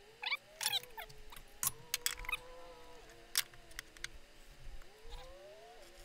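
Light clicks and taps on the sheet-metal firewall as a marker traces the cutout outline, with a few short squeaks early on.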